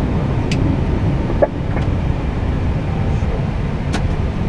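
Steady low rumble inside an Airbus A320neo cockpit as the airliner taxis off the runway after landing, with a few brief clicks.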